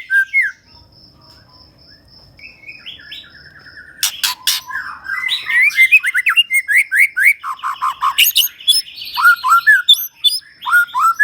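White-rumped shama (murai batu) singing a fast, varied song of whistled notes, rising slurs and sharp clicks, running through its repertoire of imitated calls. After a brief opening phrase it drops to a faint high repeated note and a short trill, and loud song resumes about four seconds in.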